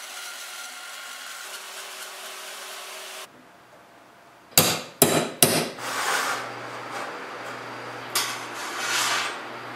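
A benchtop bandsaw runs steadily for about three seconds. After a short quieter gap come three sharp hammer blows on a metal strip clamped in a bench vise, about half a second apart, followed by two stretches of scraping on metal.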